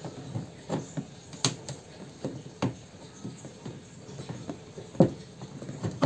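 Sparse light clicks and scrapes of a rusted screw being turned out of a washing machine's plastic body with large cutting pliers, the screw nearly free. The sharpest click comes about five seconds in.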